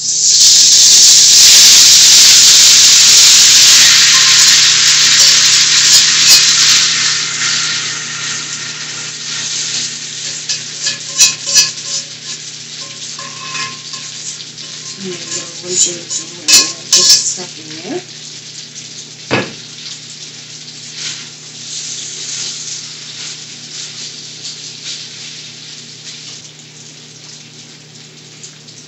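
Sauced spaghetti dropped into hot oil in a stainless steel skillet: a loud sizzle that starts at once and slowly dies down. Metal tongs and the other pan clink against the skillet now and then as the pasta is spread out.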